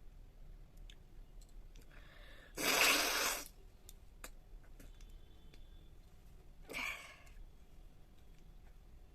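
A young woman sneezes once, a sudden loud burst of breath about three seconds in, just after a short intake of breath. A shorter, softer breath follows near seven seconds.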